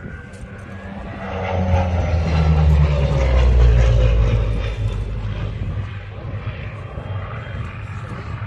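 A Second World War single-engine piston fighter making a low pass. The engine sound swells to a peak about three to four seconds in, its pitch drops as the aircraft goes by, and then it fades away.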